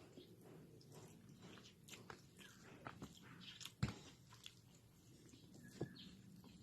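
A person eating pancit canton noodles: faint chewing with scattered wet mouth clicks and smacks, the sharpest click a little under four seconds in.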